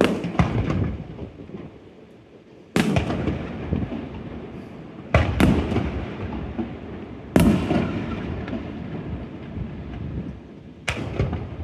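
Aerial firework shells bursting in the sky: about seven sharp booms spread a second or two apart, two of them coming in quick pairs, each trailing off in a rolling, rumbling echo.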